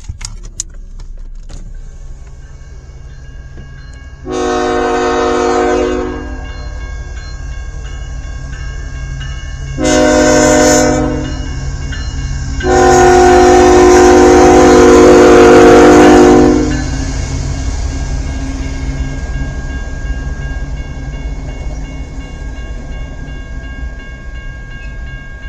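CN freight train's diesel locomotive air horn sounding three times: two shorter blasts, then a long one of about four seconds, which is the loudest. Under the horn, the steady low rumble of the approaching locomotives continues throughout.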